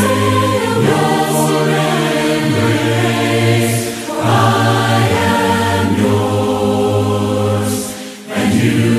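A choir of voices singing a slow hymn a cappella, in long held notes with a short break about eight seconds in.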